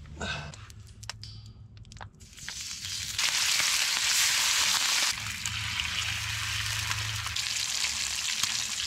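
Bacon sizzling in a skillet over a wood fire. A few clinks as the pan goes on the fire, then the sizzle starts about two and a half seconds in and turns loud as the strips hit the hot pan.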